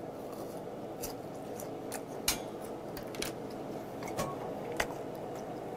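Chewing a mouthful of grilled chicken from a skewer, with about five sharp mouth clicks spread through, over a steady low hum.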